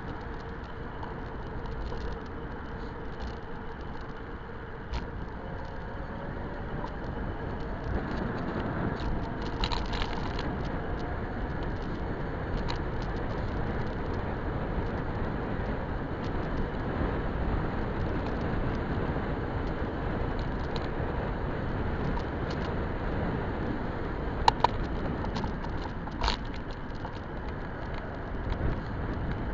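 Electric bike riding along a paved path, heard from a camera mounted on the bike: a steady rushing of wind and tyre noise, with a few sharp clicks or rattles, two of them close together near the end.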